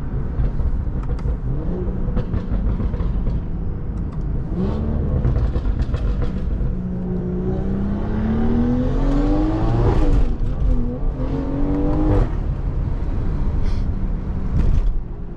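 Stage 2 tuned BMW 540i's turbocharged inline-six, with aftermarket downpipe and catback exhaust, accelerating hard. Engine pitch climbs through a couple of short pulls, then in one long rise, dips at a gear change about ten seconds in, climbs again and drops off suddenly as the throttle lifts about two seconds later.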